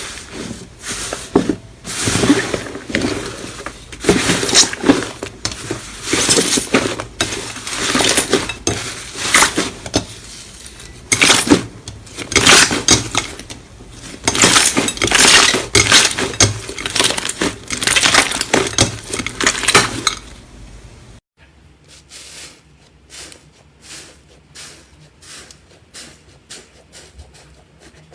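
Slime being squeezed and pressed by hand, giving loud bursts of dense crackling and clicking. After a cut about two-thirds of the way through, quieter, sparser clicks follow.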